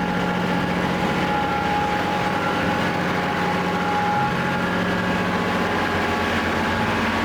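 A vehicle engine running steadily at an even, low speed, its pitch shifting slightly near the end.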